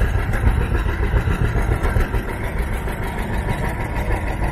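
An engine running at a steady idle, its low firing pulses continuous.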